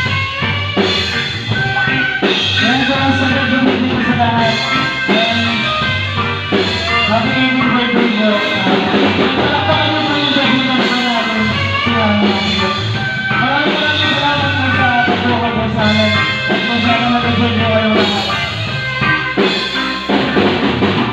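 A live band playing a song: drum kit, guitar and bass with a singing voice carrying the melody over a steady beat.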